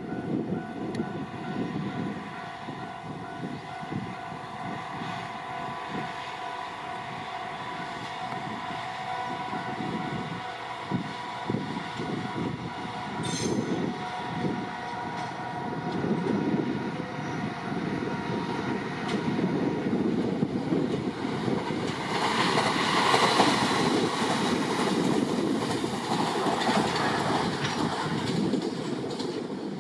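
Trains running past: a freight train hauled by a DD40 diesel locomotive and a 701/E721 electric local train overtaking it. A steady rumble of wheels on rail carries several steady engine and motor tones, and it grows louder over the last third as the trains pass closest.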